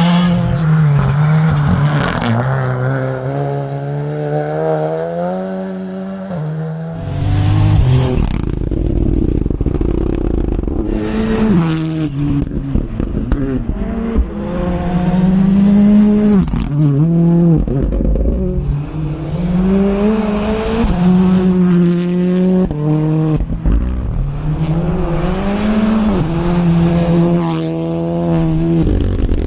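Rally car engine revved hard, its pitch climbing and dropping again and again as it shifts up and lifts off.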